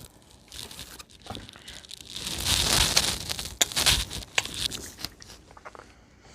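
Crinkling and tearing of paper or plastic food wrapping, loudest about two to three and a half seconds in, with a quick run of sharp clicks just after.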